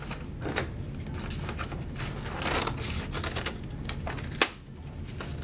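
Scissors cutting paper, with irregular small snips and the crinkle of the paper being handled, and one sharp click about four and a half seconds in.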